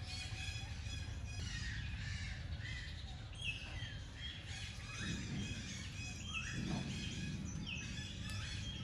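Birds chirping and calling: many short high notes, several of them sliding down in pitch, over a steady low rumble.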